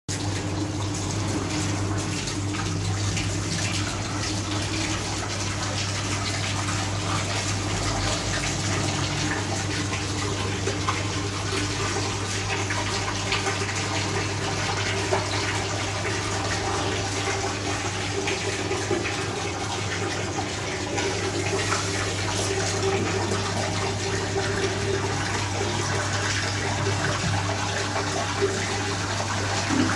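Tap water pouring in a steady stream into the steel bowl of a dough mixer, over a steady low electric hum, with a few light knocks.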